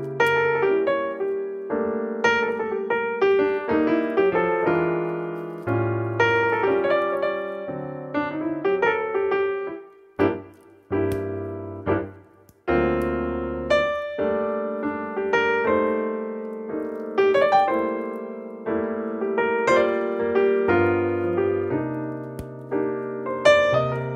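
Background piano music: single notes and chords struck and left to ring out, with a short break near the middle.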